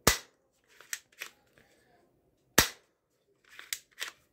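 Plastic spring-action toy gun being cocked and fired: two sharp snaps about two and a half seconds apart, each followed by a pair of lighter clicks as the slide is worked.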